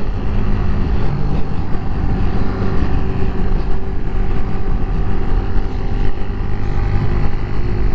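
Sukida SK125's 125 cc single-cylinder four-stroke engine running steadily while the motorcycle cruises, heard from inside the rider's helmet under a heavy low wind rumble.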